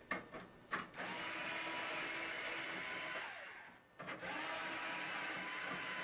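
Power screwdriver backing out the washer's control-panel screws: a few short clicks, then two steady runs of its motor of about two and a half seconds each, each winding down in pitch as it stops.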